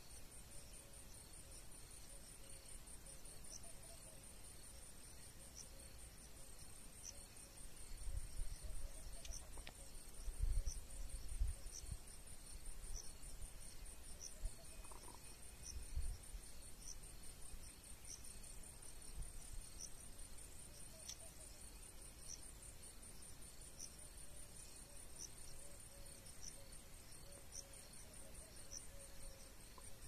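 Insects chirping at dusk: a steady, fast, high-pitched trill, with a second sharper chirp repeating about once every second and a half. A few low rumbles between about 8 and 16 seconds in are the loudest sounds.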